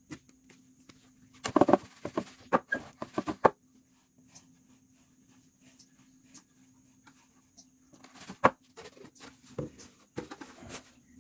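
Hands raking and scooping through a wooden tray of mealworms (ulat hongkong) and their frass, a dry rustling patter in bunches of short crackles, loudest about one and a half to three and a half seconds in and again around eight seconds. A faint steady hum lies underneath.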